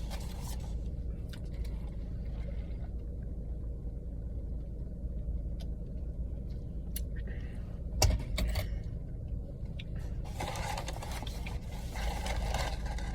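Steady low hum of an idling car heard from inside the cabin, with a sharp click about eight seconds in and a stretch of rustling near the end.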